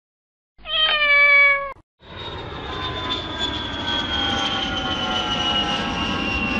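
A cat's single meow, about a second long and dropping slightly in pitch. Then, from about two seconds in, the steady drone of an airliner cabin in flight, with a whine that slowly falls in pitch.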